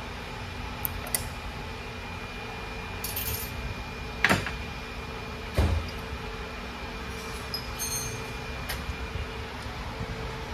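Hand tools clinking and clanking against a truck transmission's case and stand as a mechanic works wrenches on its bolts, with a short metallic jangle and two loud knocks a little past the middle, the second a heavy thump. A steady shop hum runs underneath.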